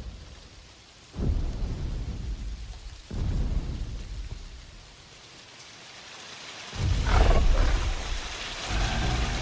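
Film sound effects of a thunderstorm: rain falling steadily, with a low roll of thunder about a second in and another about three seconds in. About seven seconds in, a louder rumble starts with a wavering higher cry over it.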